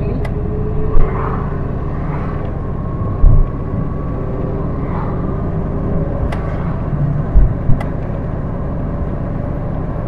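Car driving at town speed, heard from inside the cabin: a steady engine and road rumble, with a few short low thumps from the road about a second in, around three seconds in and twice near seven and a half seconds.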